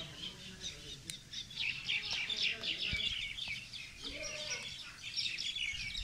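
Parakeets chirping and chattering: a dense run of rapid, high chirps that thickens from about a second and a half in, with one lower call about four seconds in.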